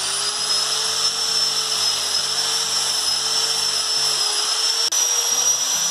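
Angle grinder with an abrasive sanding disc running at full speed, grinding the steel belt wire on the cut edge of a car tyre: a steady high whine over a harsh grinding hiss, with a momentary dip about five seconds in.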